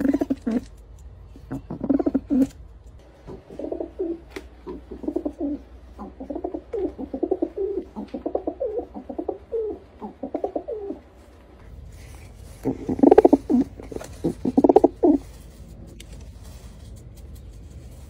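Pigeons cooing in a run of low, throaty, repeated calls. About twelve seconds in the background hiss changes and a louder bout of cooing follows, ending about three seconds before the end.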